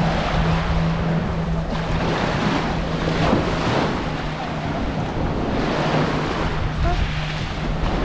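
Sea waves washing onto the beach in swells every second or two, with wind buffeting the microphone. A steady low hum runs underneath and breaks off now and then.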